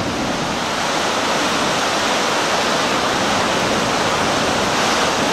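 Ocean surf breaking over and around shoreline rocks: a steady, continuous rush of churning white water.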